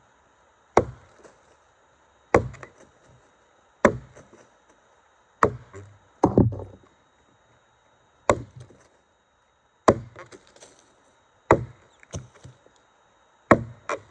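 Tuatahi camp axe on a beech racing handle chopping into a redgum log: a sharp wooden chop about every one and a half seconds, around nine strikes in all, a few followed by a lighter knock.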